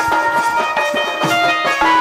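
Sambalpuri danda nacha folk music: a barrel drum beaten in a lively rhythm under a melody instrument holding steady notes.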